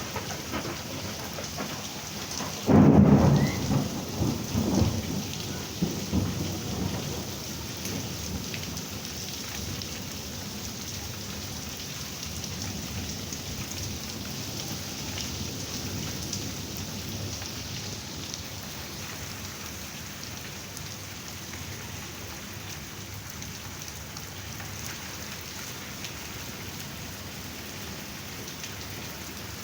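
Heavy rain falling steadily, with a loud thunderclap about three seconds in that rumbles away over the following few seconds.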